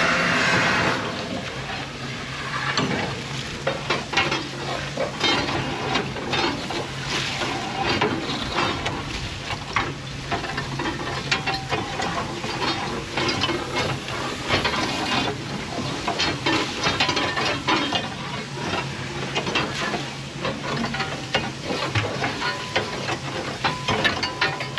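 A steel rake scraping and rattling broken ash and clinker out of a steam locomotive's ash pan onto the ground, in irregular scrapes and clicks, over a steady low hum. A louder hiss in the first second.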